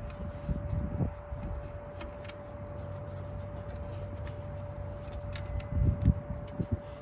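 Hands and tools working in a car's engine bay while fitting a new alternator: scattered light clicks and knocks, with a few heavier thumps about six seconds in, under a faint steady hum.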